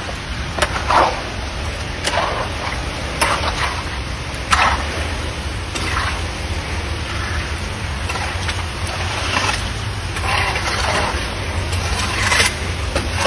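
Floodwater splashing and sloshing in short irregular bursts as debris is pulled from a clogged storm drain, over a steady low rumble.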